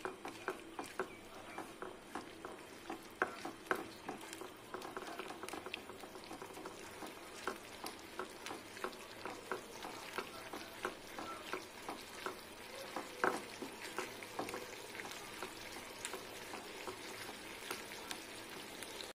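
Sago pearls in sugar syrup boiling hard in a pan, a steady bubbling hiss with many irregular small pops, as a silicone spatula stirs through them. The sugar is melting into a boiling syrup.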